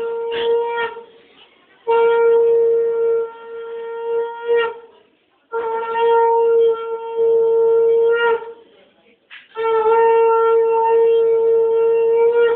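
Conch shell (shankha) blown in long steady blasts, the auspicious call of Bengali wedding rites: a short blast at the start, then three held blasts of about three seconds each, the pitch lifting slightly at the end of some of them.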